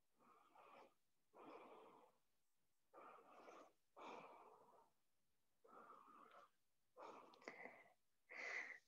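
Faint, slow deep breathing: about seven soft breaths in and out, roughly one a second, with quiet gaps between.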